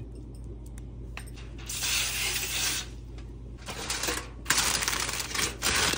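Sheet of aluminum foil crinkling and rustling as it is handled and pressed over a foil pie pan. It is loudest about two seconds in and again in the last second and a half.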